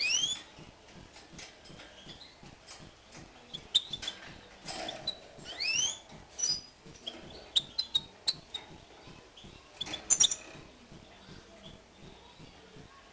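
Caged European goldfinches calling: scattered short high chirps and twitters, with a quick rising whistle at the start and another about six seconds in. A few sharp clicks cluster around ten seconds in.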